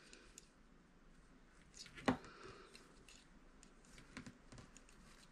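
Faint clicks and taps of knitting needles as knit stitches are worked, with one sharper click about two seconds in.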